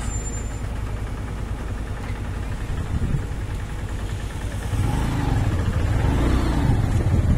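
A vehicle engine and road noise with a steady low rumble, growing louder about five seconds in as a vehicle comes closer, its engine pitch wavering.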